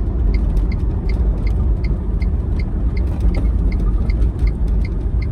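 Road and tyre noise with a low rumble inside the cabin of an electric Tesla Roadster coasting in a straight line, with no motor drive or regen. A small, steady ticking runs through it at about three ticks a second.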